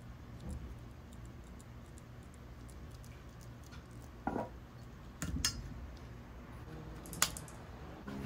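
A handful of light clicks and knocks from the scooter's handlebar and brake lever being handled and tilted, over a faint low hum.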